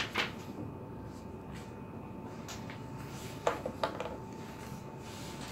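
Quiet room tone with a faint steady hum, broken by a few short clicks or taps: one just after the start, one faint one past two and a half seconds in, and two close together about three and a half seconds in.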